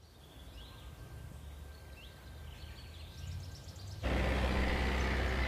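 Outdoor ambience: a few faint bird chirps over a low rumble, then about four seconds in an abrupt cut to louder, steady wind noise.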